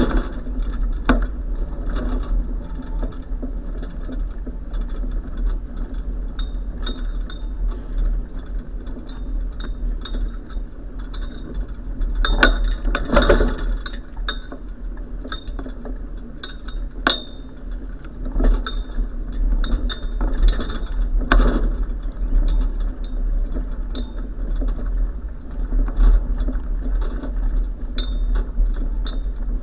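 A moving bicycle heard from a bike-mounted camera: a steady low rumble of wind and road, with constant light rattling and clinking from the bike and the mount. Sharper knocks come over bumps several times, the loudest about halfway through.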